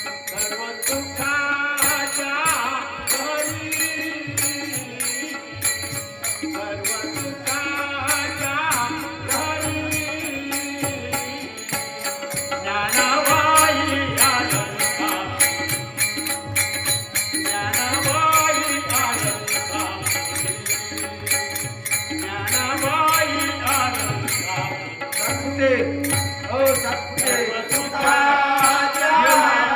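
Kirtan-style devotional bhajan music: a wavering melodic line over a drum, with sharp metallic strokes keeping a steady beat.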